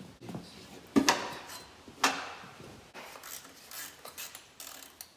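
Metal tools and motorcycle parts clanking during a teardown: two sharp knocks about a second apart, then lighter scattered clinks and rattles.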